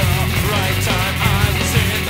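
Loud punk-style rock music: a band with a singing voice.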